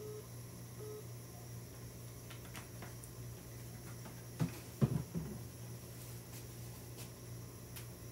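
Steady low hum of kitchen appliances, with a quick cluster of knocks about halfway through, like items being handled or set down.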